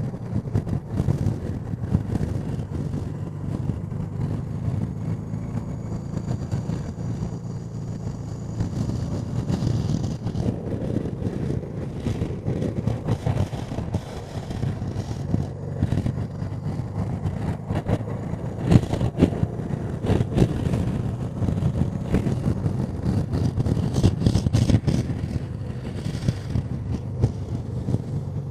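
Honda Deauville NT650V's V-twin engine running steadily while the bike is ridden, with wind noise rushing over the microphone.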